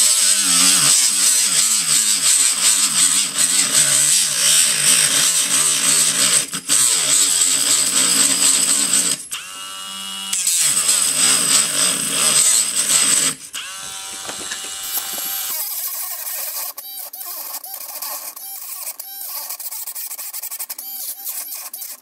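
Handheld rotary tool with a small cut-off disc grinding through a hard plastic housing: a loud, harsh, high-pitched cutting noise. The cutting breaks off twice, about nine seconds in and again near thirteen seconds, and each time the motor's whine is heard on its own. In the last few seconds the tool runs lighter and quieter, with a rattling, clicking edge.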